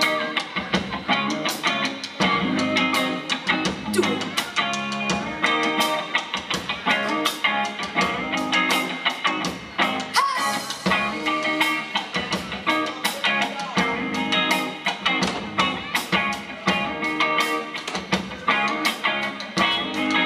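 Live country-rock band playing: electric guitars and bass over a drum kit keeping a steady beat, with no vocals.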